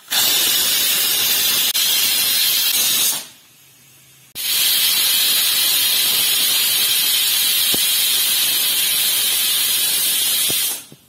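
Pressure cooker whistle: steam hissing out of the weight valve as pressure peaks while pulses cook. It comes in two loud blasts, a short one of about three seconds and then, after a brief pause, a longer one of about six seconds that cuts off near the end.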